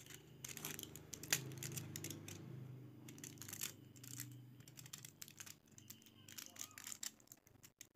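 Plastic candy packaging crinkling and crackling as small hands handle and open it, in a string of short, irregular rustles.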